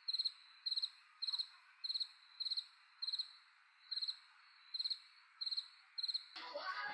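Cricket chirping: short high chirps, each of a few quick pulses, repeating steadily a little under twice a second over a faint hiss, stopping abruptly near the end.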